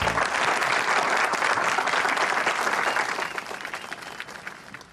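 A crowd of students applauding: dense clapping that dies away over the last two seconds.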